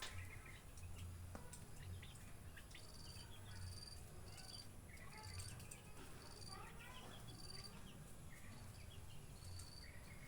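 Faint bird chirps and calls, with a short high note repeated about twice a second through the middle.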